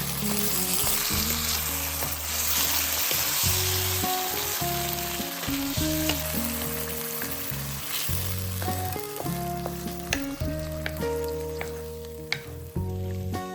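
Food sizzling as it fries in a hot pan, a dense hiss that thins out in the last few seconds as a utensil stirs, with a few sharp clicks against the pan. Calm instrumental background music plays throughout.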